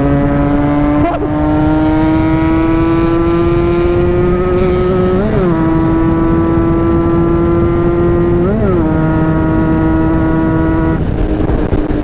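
Kawasaki Ninja 150RR two-stroke engine pulling at steady throttle on the move, its note climbing slowly, with a drop in pitch about a second in that sounds like a gear change. The pitch briefly jumps up and falls back twice, about halfway through and again a few seconds later, and the engine note stops shortly before the end.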